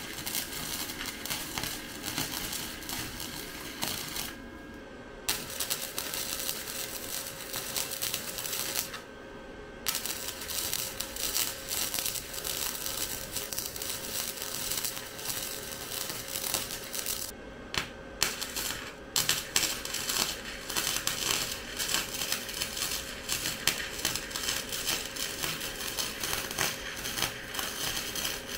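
Small Harbor Freight flux-core wire welder crackling and sputtering as a bead is laid, the arc breaking off for about a second roughly four seconds in, again about nine seconds in, and twice briefly around seventeen to nineteen seconds. The welder's own judgement is that the wire speed and voltage are not quite set right.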